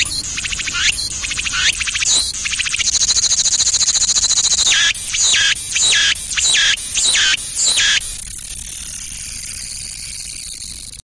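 Cicada song: a run of rising calls about once a second, a long buzzing trill a few seconds in, then a series of short calls. It thins to a steady hiss and cuts off suddenly near the end.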